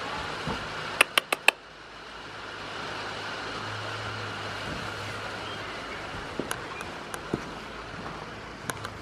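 Steady rain noise with a low hum under it. A quick run of four sharp clicks comes about a second in, and scattered single ticks follow later.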